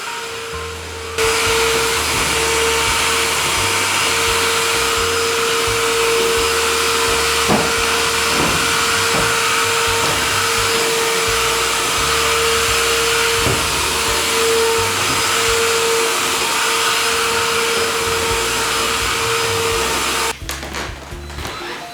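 Vacuum cleaner running steadily, a constant whine over its airflow noise; it gets louder about a second in and dips unevenly near the end.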